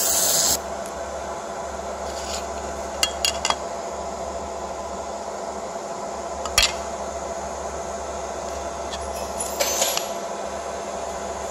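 Fiber laser marking machine etching anodized aluminium: its buzzing hiss cuts off about half a second in, leaving the machine's steady hum. A few metallic clinks and knocks follow as the aluminium plate is handled, the sharpest one near the middle.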